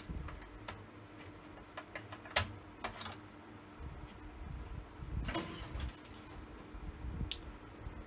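Scattered clicks and light knocks from hands handling the opened LCD monitor's metal chassis and parts, with two sharp clicks between two and three seconds in and a short clatter around five seconds in, over a faint steady hum.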